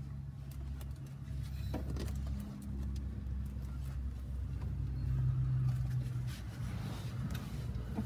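A vehicle engine running steadily, a low hum that grows a little louder about five seconds in. A single click comes about two seconds in.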